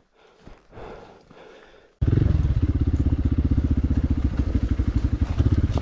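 Hero Xpulse 200 dirt bike's single-cylinder engine running at low revs with a rapid, even firing beat. It cuts in suddenly about two seconds in after near quiet.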